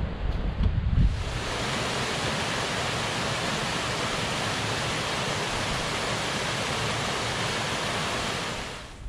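A small mountain-creek cascade rushing steadily over mossy boulders. About a second in it takes over from gusts of wind buffeting the microphone, and it fades out near the end.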